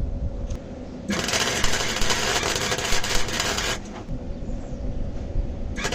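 Electric arc welding on an exhaust hanger: a dense, steady crackle for about three seconds that stops, then starts again near the end.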